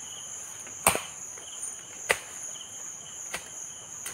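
A digging tool striking into soil three times, about a second and a bit apart, with a fainter strike near the end, as a planting hole is dug. Insects trill steadily and high throughout.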